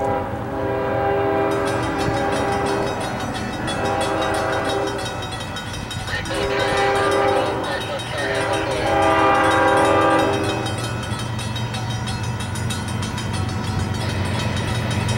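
Union Pacific locomotive's horn sounding a series of blasts, the last one long and ending about ten seconds in, followed by the low rumble of the train drawing nearer.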